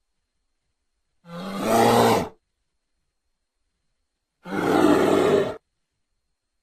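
Two Majungasaurus creature sound effects: low, rough dinosaur calls, each about a second long, the first about a second in and the second about four and a half seconds in, with silence between them.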